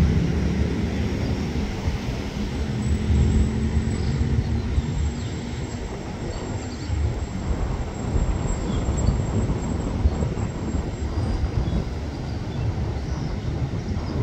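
Express passenger train hauled by a diesel-electric locomotive pulling away on the rails: a steady low rumble of wheels and engine. The train's engine hum fades in the first second or so.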